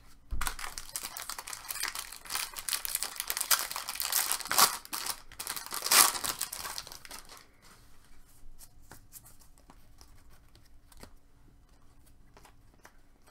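A trading card pack wrapper being torn open and crinkled, a dense crackling that runs for about seven seconds and peaks near the end. It then drops to faint scattered ticks as the cards are handled.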